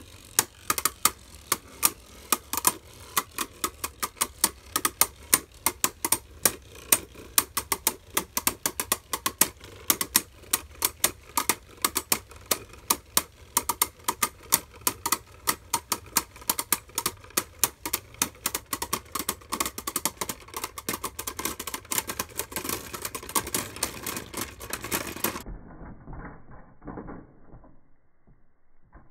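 Two Beyblade Burst spinning tops, Arc Bahamut 7B.O and Maximum Garuda 7M.O, clicking rapidly in a plastic stadium, several sharp clicks a second as they knock together. About 25 s in the clicking cuts off suddenly, and a few duller rattles follow as the tops wind down and come to rest.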